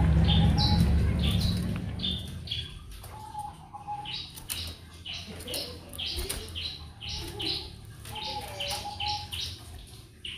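Small birds chirping and twittering, many short high notes repeating throughout, with a few longer whistled notes. A low rumble underneath is loud at first and fades away within the first two seconds.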